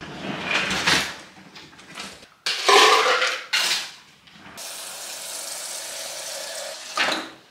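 Refrigerator door water dispenser filling a plastic pitcher: a steady stream of water from about halfway through, ending shortly before the end. It is preceded by a few seconds of loud clattering and rattling handling noise.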